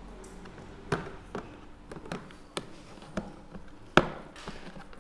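Plastic pet carrier being closed by hand: scattered clicks and knocks as its wire door and plastic shell are pressed and snapped into place, the loudest knock about four seconds in.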